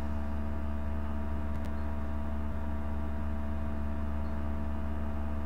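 Steady low electrical hum with background hiss, holding a few constant tones, and a faint click about one and a half seconds in.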